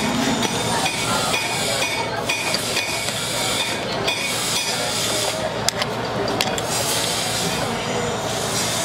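A few light metallic clicks and clinks as an old truck's ignition switch housing is worked apart with a screwdriver, over steady background noise that is louder than the clicks.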